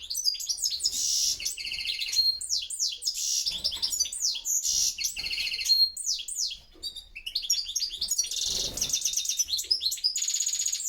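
European goldfinches singing: a fast, continuous twittering of quick rising and falling notes and short trills, with a brief lull about seven seconds in.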